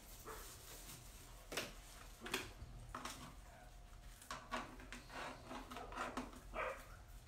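Scattered light knocks and clicks with some rubbing, a few single sharp knocks followed by a busier run of small handling noises near the end.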